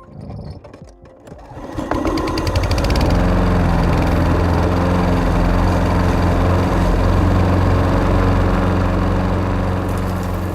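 Lawn mower engine starting: a few faint clicks, then the engine catches about two seconds in, climbs in pitch and settles into a steady run.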